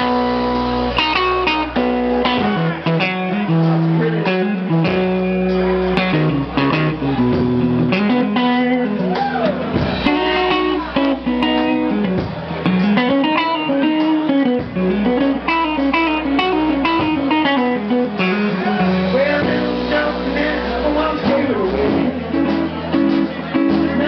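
Live blues-rock band playing, led by electric guitar over bass and drums.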